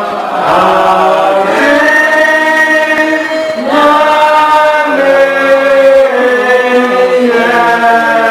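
A man singing a slow worship song into a microphone, holding long notes that change every second or two.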